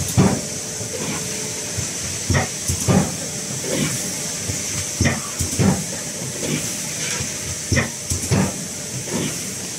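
An 80-ton tilting thermoforming cup-making machine running: paired mechanical clunks repeat in a regular cycle about every two and a half to three seconds, over a steady high hiss.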